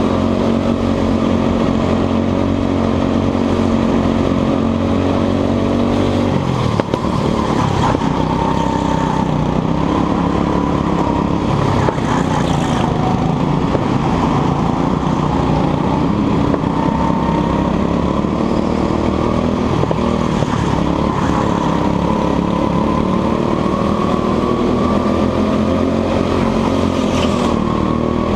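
Go-kart engine running close behind the seat. Its pitch holds steady at first, then repeatedly dips and climbs again as the kart brakes and accelerates through corners, with a brief knock about seven seconds in.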